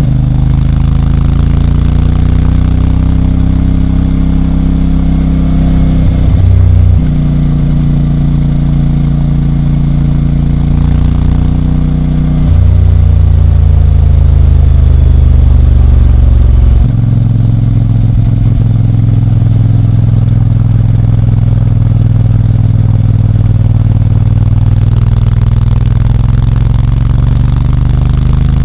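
CFMOTO 450MT's parallel-twin engine running at steady revs, with clear changes in pitch and load about six, twelve and seventeen seconds in.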